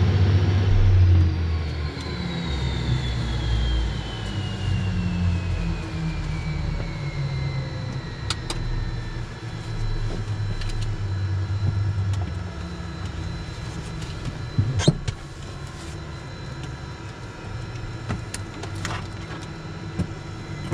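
Cessna Citation Mustang's Pratt & Whitney PW615F turbofans spooling down after shutdown: a whine falls slowly in pitch over a low rumble that fades away. A few sharp clicks come later, the loudest about fifteen seconds in.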